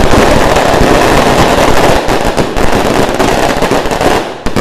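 Fireworks barrage: rockets and firecrackers going off in a dense, continuous crackle that breaks into rapid separate bangs about halfway through and thins near the end.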